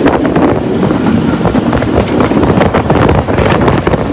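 Wind buffeting the microphone at the open door of a moving passenger train, over the steady running noise of the train.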